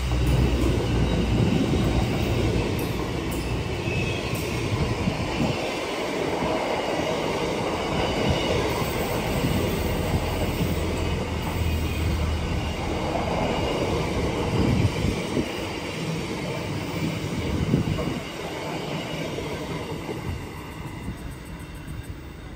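Container freight train rolling past at close range: steel wheels rumbling and clattering on the rails, with a thin high wheel squeal over it. It fades over the last few seconds as the final wagon goes by.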